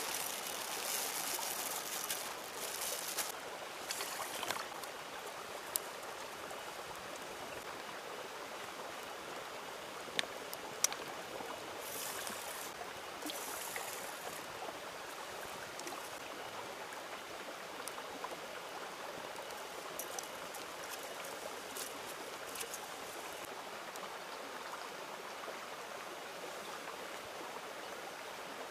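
River water flowing steadily, with a few sharp clicks and brief rustles now and then.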